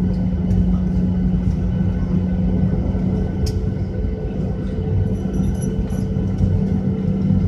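Jet airliner cabin noise over the wing while taxiing: a steady low rumble with an even engine hum, and a few light clicks.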